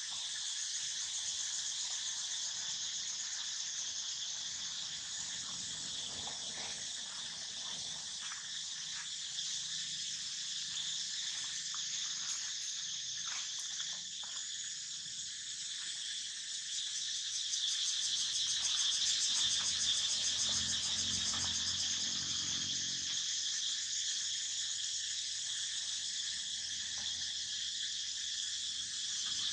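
A steady, dense chorus of insects making a continuous high-pitched hiss, with a few faint ticks and a low hum for a few seconds about two-thirds of the way through.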